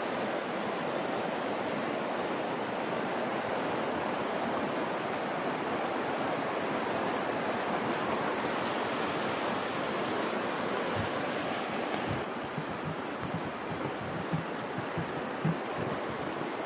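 A river in flood: fast, muddy water rushing steadily. From about twelve seconds in it is a little quieter, with a few brief low thumps.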